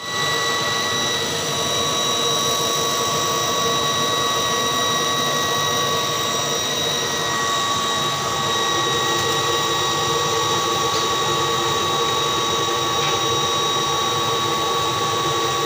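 Laser engraving machine running: a steady mechanical whine, with several high tones held over a hiss.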